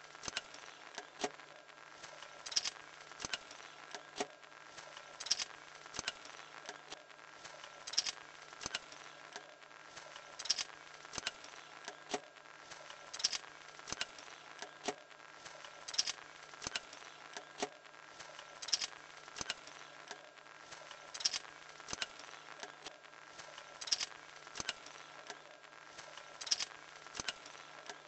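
Homemade drawing machine of wooden craft sticks, driven by a small electric motor: the stick linkage clicks and knocks as it swings the pencil. A loud click comes about every two and a half seconds, with lighter clicks between, over a steady low hum.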